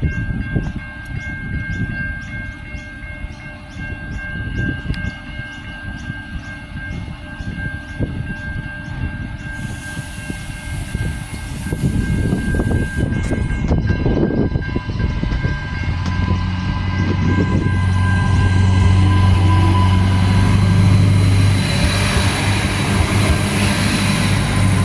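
Adelaide Metro 3000/3100 class diesel railcars pulling out and passing close by, their engine and wheel noise building to loudest near the end, with a strong steady low drone from about two-thirds of the way in. A steady high tone and faint regular ticking run through the first half.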